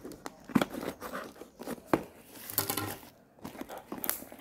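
Scissors snipping through packing tape along the seam of a cardboard parcel, a few sharp cuts with crinkling tape in between, then a louder rip of tape and cardboard as the box is pulled open near the end.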